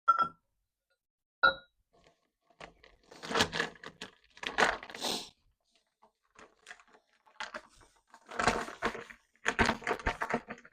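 Handling sounds in a small room: two sharp clinks with a brief ring, then bursts of rustling and crinkling.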